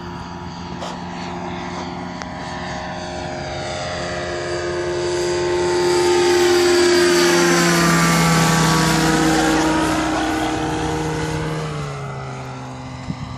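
Hurricane ultralight aircraft's engine and propeller running as it passes low overhead. The sound builds to its loudest about halfway through, then drops in pitch as the plane goes by and fades.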